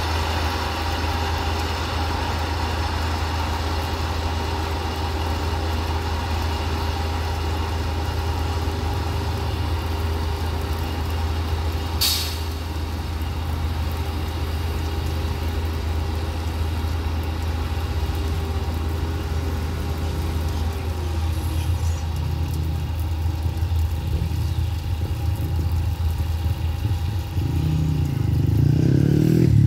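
Track ballast tamping machine's diesel engine running steadily, with one short hiss of air about twelve seconds in. Near the end the engine grows louder and deeper as the machine pulls forward.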